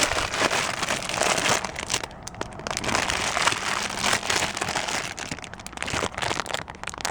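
Plastic packaging crinkling and rustling as it is handled, dense for the first couple of seconds and then in scattered crackles and clicks. Most likely the wrapping of a new replacement door handle being opened.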